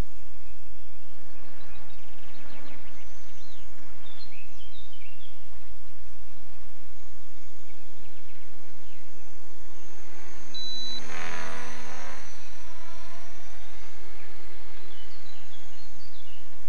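Steady wind rumble on the microphone, with a few bird chirps about four seconds in and again near the end. Around eleven seconds in, a passing engine swells and fades away.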